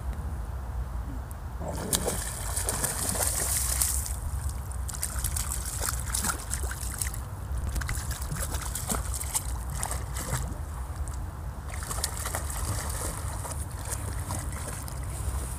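Shallow creek water splashing and sloshing as a dog wades through it, in bouts of a few seconds with short lulls between.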